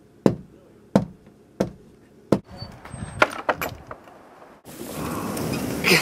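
Four sharp knocks, evenly spaced about two-thirds of a second apart, then a quick rattle of clicks and knocks at a wooden gate and its latch. Near the end, a rough steady rustle of a canvas jacket rubbing against the microphone.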